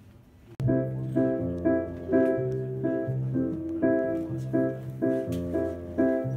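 Keyboard with a piano sound playing chords, struck about twice a second over held bass notes, starting suddenly about half a second in.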